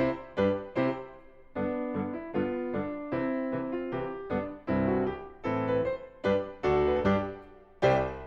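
Background piano music: a melody of struck notes and chords, each ringing and then fading.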